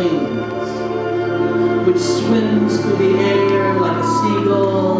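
Music with singing: a wavering sung vocal line over a steady low drone.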